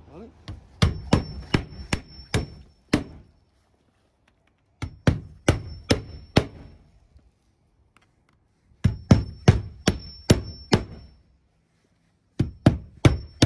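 Roofing hammer driving nails through an asphalt starter shingle into the roof deck: four runs of quick strikes, about six or seven blows each, with short pauses between runs and a faint ring over each run.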